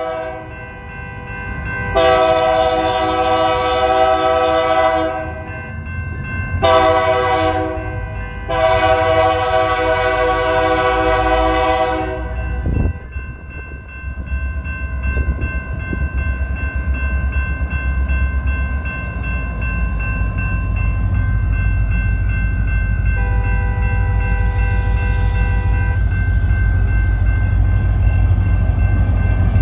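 BNSF EMD SD40-2 diesel locomotive blowing its air horn in the grade-crossing pattern: long, long, short, long. Under the horn is a steady ringing from the crossing signal. In the second half the locomotive's diesel engine rumbles louder as it comes up to the crossing, and a second, thinner horn sounds for about three seconds.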